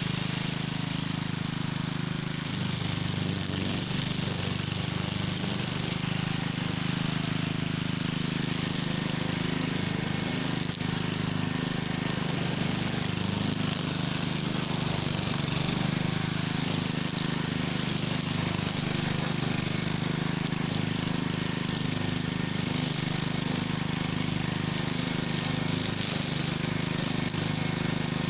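Cub Cadet walk-behind string trimmer's gas engine running steadily at working speed while its line cuts through tall weeds.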